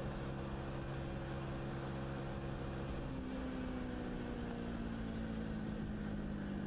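Motorcycle engine running steadily while riding, with wind rumbling on the microphone. About three seconds in the engine note changes, then slowly falls in pitch as the bike eases off. Two short high chirps come about a second and a half apart.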